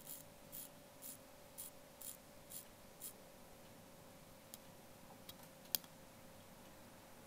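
Seiko Presage Cocktail Starlight automatic watch being hand-wound at its crown: soft ratcheting clicks about twice a second for the first three seconds. After that come a few faint ticks and one sharper click just before six seconds.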